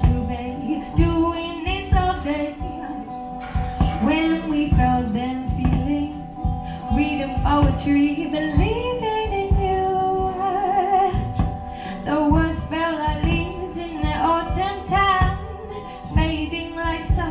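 A woman singing, accompanied by a strummed acoustic guitar, with a long held note that wavers with vibrato about ten seconds in.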